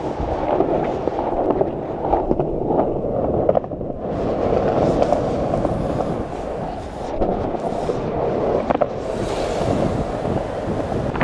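Skateboard wheels rolling on pavement: a continuous gritty rumble broken by a few short clacks.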